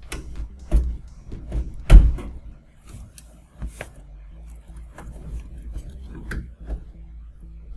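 Plastic wire-harness connectors being unplugged and handled inside a DLP rear-projection TV chassis: a scattered series of clicks and knocks, the loudest about two seconds in.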